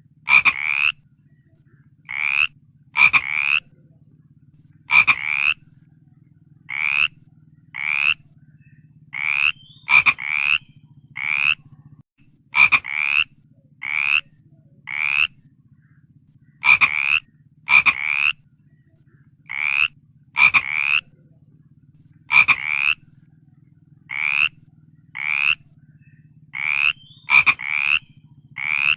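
Frog croaking in short calls about half a second long, each rising slightly in pitch. The calls come roughly once a second at irregular spacing, sometimes in quick pairs, and some open with a sharp click. A steady low hum lies beneath.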